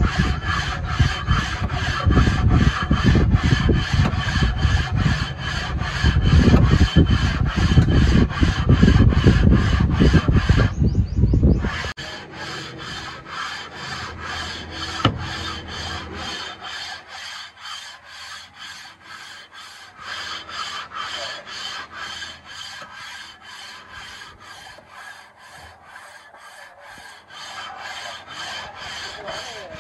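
Hand rubbing of a round flat metal plate back and forth over the bare top of an engine block with the cylinder head off, a rapid, even scraping. It is loud for about the first twelve seconds, then drops to a softer rubbing.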